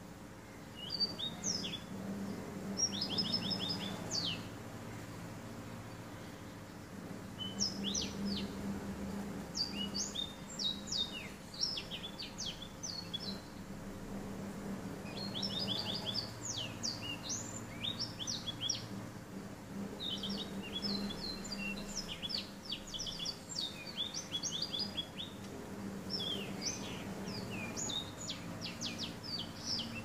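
Black-throated canary singing: bouts of rapid, high, sweeping notes and trills a few seconds long, with short pauses between them. Its song was tutored on a goldfinch's.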